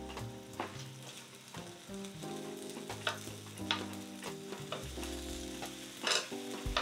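Thin-sliced beef brisket (chadolbaegi) and mushroom pieces sizzling on a hot grill pan, with metal tongs clicking sharply against the pan a few times as the slices are turned. Soft background music with held notes plays underneath.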